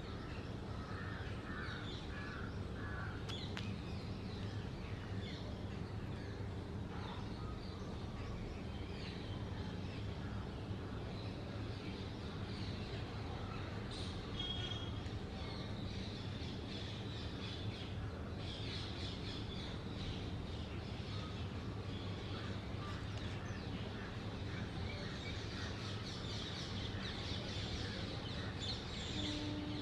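Birds calling on and off, with short, repeated calls throughout, over a steady low hum.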